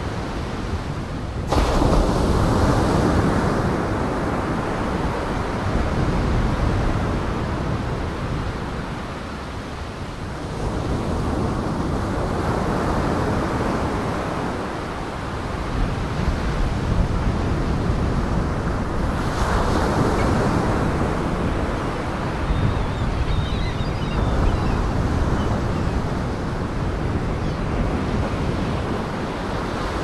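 Waves breaking on a beach with wind: a continuous rushing noise that swells and eases every several seconds. There is a sudden jump in level about a second and a half in.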